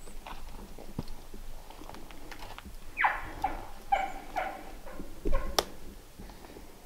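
A series of about five short animal calls, each dropping sharply in pitch, about half a second apart, followed by a sharp click.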